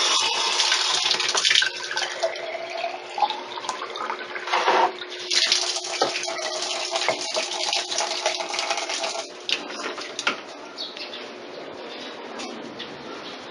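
Tap water running into a glass bottle at a basin, in two spells, with the filling note rising as the bottle fills; the water stops about nine seconds in.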